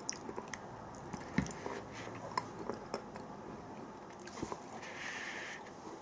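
A person chewing a mouthful of canned mackerel: soft, irregular little clicks and wet mouth sounds.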